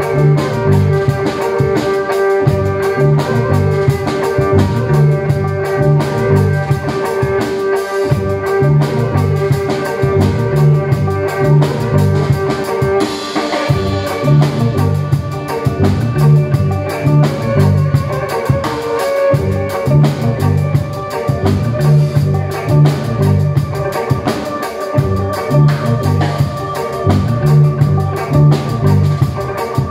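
Live instrumental music from a drum kit and an amplified violin played through effects pedals, over a repeating low bass phrase. A long held violin note gives way to a changing line about halfway through.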